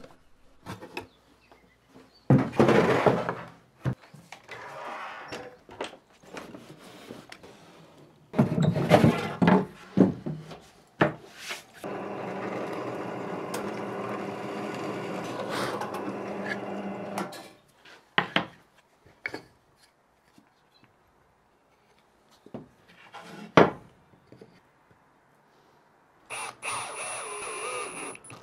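A run of workshop power-tool sounds: two short loud cuts from a sliding miter saw about two and nine seconds in, then a drill press motor running steadily for about five seconds while it bores pine, then scattered knocks. Near the end an AEG cordless drill spins up, driving a screw.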